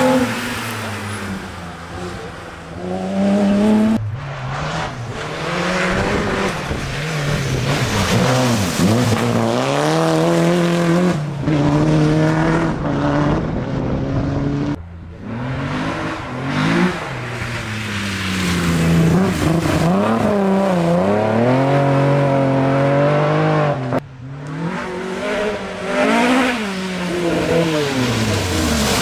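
Historic rally cars, among them a BMW E30 and a Ford Escort Mk1, driven flat out past one after another, their engines revving up and dropping back through gear changes. The sound breaks off abruptly four times as it jumps from one car to the next.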